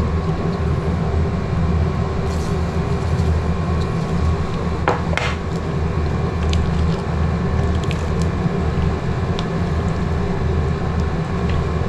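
Pot of fish soup simmering on a gas stove burner: a steady low rumble, with a few light clicks of a ladle against the steel pot and a salt shaker, and a louder scrape or rattle about five seconds in.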